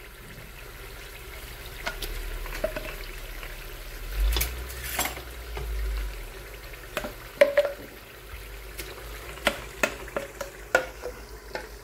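Spinach purée being scraped and tapped out of a blender jug into a pressure-cooker pot of bubbling meat gravy: scattered sharp clicks and knocks of the jug and utensils against the pot over a steady sizzle. The loudest knock comes about seven and a half seconds in.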